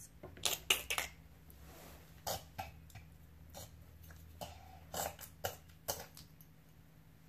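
Handling noise from plastic dolls and toy pieces being moved about: a scatter of short, sharp clicks and taps, bunched near the start, about two seconds in, and around five to six seconds in.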